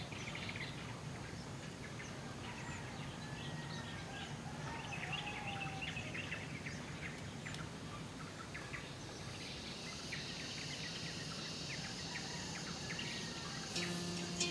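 Outdoor ambience of many small birds chirping in short calls, with a steady high insect hum setting in after about nine seconds. Near the end a plucked-string music track begins.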